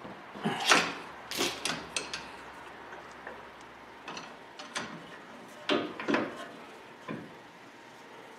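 Irregular clanks and knocks of metal suspension parts and tools being handled at a pickup's front upper control arm. They come in several short clusters, the loudest about a second in.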